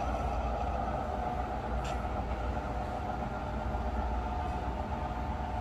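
Sound-equipped HO-scale model diesel locomotives running, a steady diesel engine drone as the train pulls away, with a single click about two seconds in.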